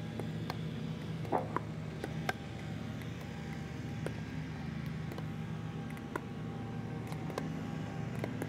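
Pickleball paddles hitting the ball in a net dink rally: sharp pops about once a second, over a steady low engine-like hum. A short squeak about a second and a half in.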